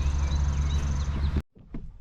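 A loud, steady low rumble with faint high chirps over it, cut off abruptly about one and a half seconds in, followed by a few faint knocks.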